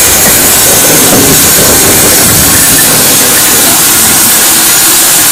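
GWR 2-8-0 steam locomotive No. 3850 with steam hissing loudly and steadily over a low rumble.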